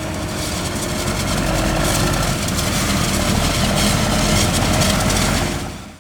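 Heavy farm machinery's diesel engine running steadily, fading out near the end.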